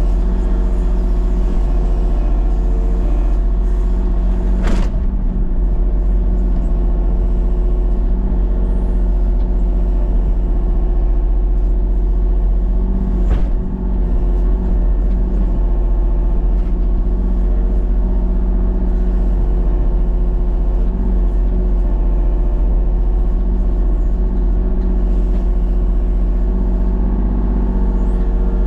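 Engine of a machine working at a tree, running steadily under load, with two sharp cracks about five seconds and thirteen seconds in.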